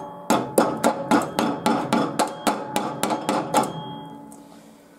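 A metal tool tapping quickly on the rusted steel of a mower deck, about a dozen ringing strikes at three to four a second, with the ring fading after the last one. The taps test whether the rust-thinned metal around a pinhole is still solid.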